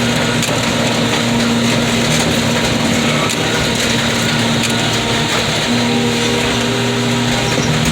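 Mobile car crusher running and crushing scrap under manual control: a steady diesel engine and hydraulic drone, with a few faint cracks.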